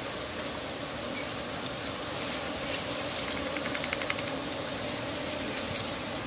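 Steady humming drone of honey bees around their nest in a tree hollow as the honeycomb is pulled out, with a brief run of rapid faint ticks about three and a half seconds in.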